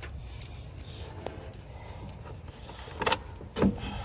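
Radiator bolts and tools being handled and set down: a few light clicks, then two louder clattering knocks about three seconds in.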